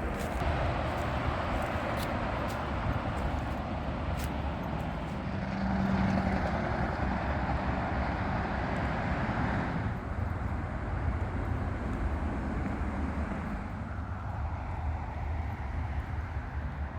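Road traffic passing: a continuous rush of tyres and engines with a low rumble. It is loudest about six seconds in and eases off after about ten seconds.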